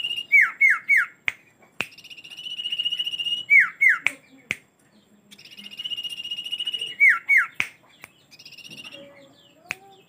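Common iora singing: a long drawn-out whistle that swells for about a second and a half, then two or three quick falling notes. The phrase repeats every three to four seconds, with sharp clicks between phrases.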